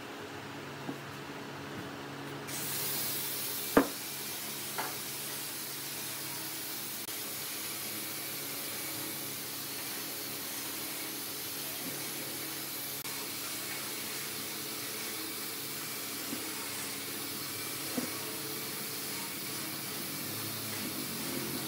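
Steady hiss of background noise with a few light knocks, the loudest about four seconds in, from a wooden stick working glue in a wooden bowl.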